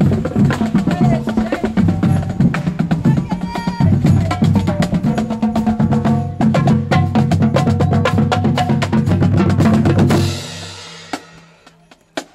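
Marching band playing a tune on brass and woodwinds over snare and bass drums, with a steady low brass bass line. The music fades out about ten seconds in, leaving a couple of sharp drum taps near the end.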